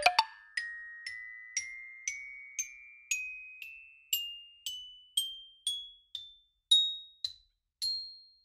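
Background music of single bell-like mallet notes climbing a scale, about two a second, each ringing briefly, with the last note near the end. A brief lower sound comes right at the start.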